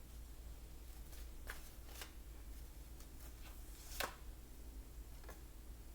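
Tarot cards being handled and shuffled: a few faint separate card flicks and taps, the sharpest about four seconds in.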